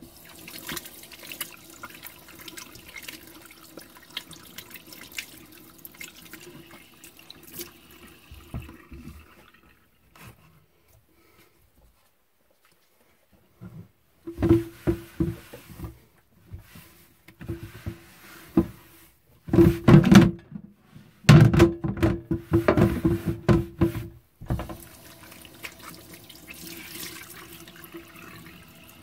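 Kitchen faucet running into a stainless steel sink while hands and a wet cloth are rinsed and rubbed under it. There is a pause of a few seconds, then a stretch of louder irregular splashing and rubbing.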